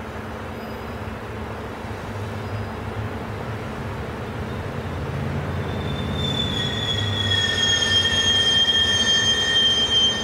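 SEPTA Silverliner IV electric commuter train rolling in and slowing to a stop, its low rumble growing louder. From about six seconds in, a high squeal that falls slightly in pitch sets in as it brakes, loudest near the end.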